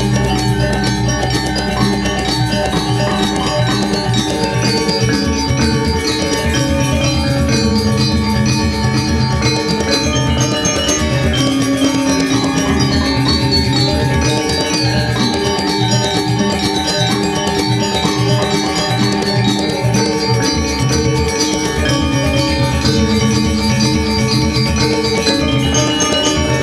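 Balinese gong gamelan ensemble playing: bronze metallophones (gangsa) and a row of small kettle gongs (reyong) struck with mallets in fast, dense patterns, with ringing, shimmering metallic tones at a steady full volume.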